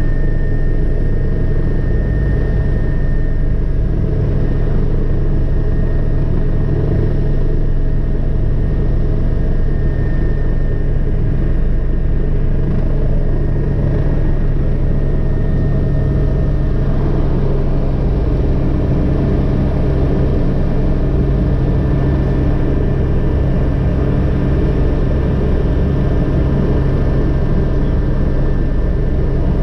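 Agusta AW119 single-turbine helicopter running at full rotor speed, heard from the cockpit with the doors open: a steady low rotor thrum with a thin turbine whine above it. Engine power comes down after the hover, and the low thrum shifts a little over halfway through.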